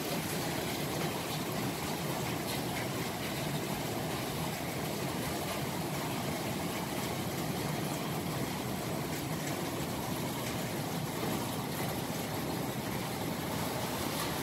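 Heavy summer downpour: a steady rain hiss, with water pouring off a roof edge.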